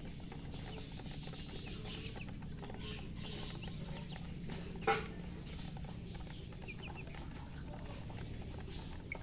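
Baby chickens peeping in scattered short chirps over a steady low hum, with one sharp click about halfway through.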